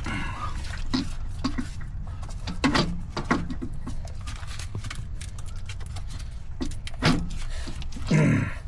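Hand tools and metal parts being handled in a truck's engine bay: scattered short clicks and knocks, a few louder ones, over a steady low hum.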